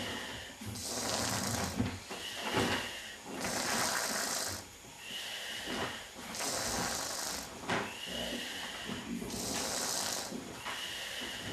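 Snoring in slow, regular breaths, about one every three seconds. Each breath has a hissing phase with a brief thin whistle, and a low rattling rumble between them.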